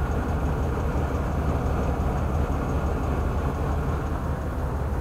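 Steady low rumble of a Dodge van's V8 engine running, heard from just outside the van.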